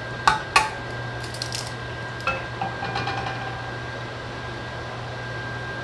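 An egg knocked twice against a nonstick frying pan, two sharp taps, then the shell crackling as it is pulled open and the egg dropped into the pan, with a few lighter clicks after. A steady low hum runs underneath.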